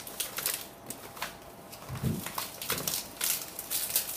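Ti leaves rustling and crackling in quick, irregular bursts as they are folded by hand around pork into a laulau bundle.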